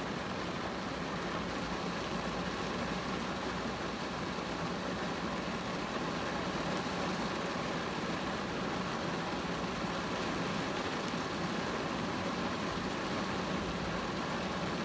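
Steady rain falling on a car, an even hiss that holds at one level throughout.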